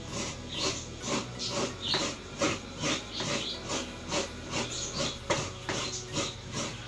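Coconut half scraped against a coconut grater (kagud), a steady run of rasping strokes about two a second as the white flesh is grated out.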